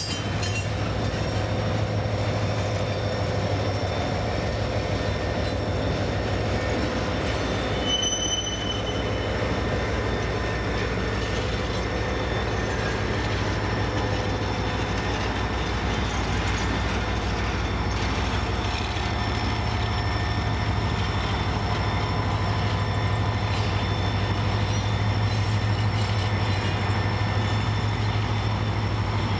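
Diesel freight train running past with a steady low rumble and thin, steady squealing tones from the wheels.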